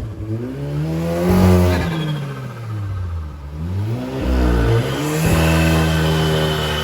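Audi S3's turbocharged four-cylinder engine being revved. It climbs to a peak about a second and a half in and falls away, then climbs again and is held high near the end.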